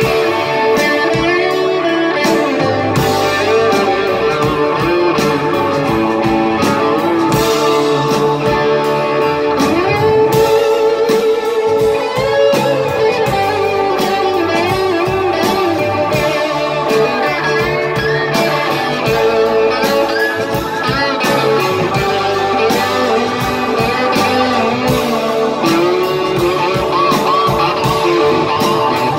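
A live blues-rock band plays an instrumental passage: electric guitars over bass, drums and keyboard. A lead guitar line bends its notes up and down throughout.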